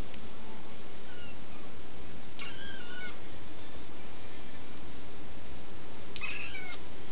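A young cat meowing twice, high-pitched, about two and a half seconds in and again about six seconds in. He is still learning to meow properly and is whining for a large moth he wants to catch.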